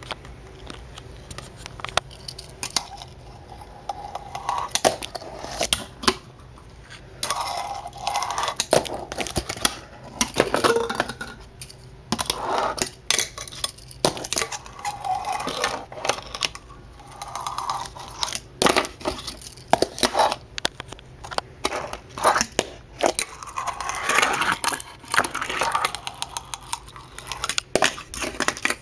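Fingerboard skated by hand on a small box ledge with a rail: short runs of the little wheels rolling and scraping, broken up by many sharp clacks of the board hitting and landing on the box and table.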